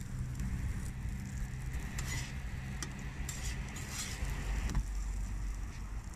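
Tortillas sizzling as they fry on a flat steel griddle, with a spatula scraping across the griddle now and then, loudest around the middle. A steady low engine-like hum runs underneath and fades about five seconds in.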